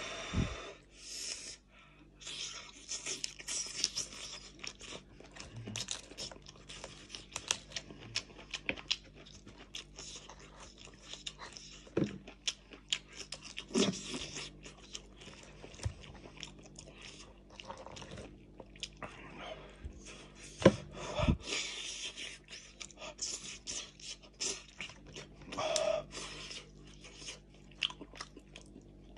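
Close-up sounds of eating braised meat off the bone by hand: wet chewing and slurping, with many short clicks and bits of tearing throughout.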